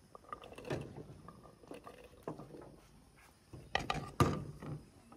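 Peeled garlic cloves tipped off a plate into a wooden mortar: a scatter of light knocks and clatters, the loudest about four seconds in.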